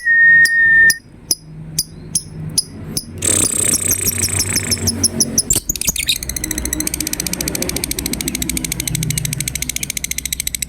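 Lovebird calls: a steady high whistle that stops about a second in, then sharp single chirps about twice a second, and from about halfway on a long, fast, even chattering trill, the 'ngekek' song that the birds are judged on.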